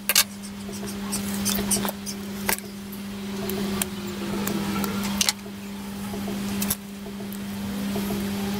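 Sharp clicks and small handling noises as crimped wire connectors are pushed onto the terminals of a small microswitch, the loudest click just after the start and a double click about five seconds in. A steady hum runs underneath.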